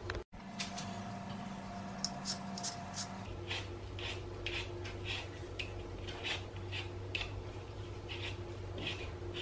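Hand-held Y-peeler scraping the skin off a raw potato in short, regular strokes, about two a second, becoming steady a few seconds in. A low steady hum runs underneath.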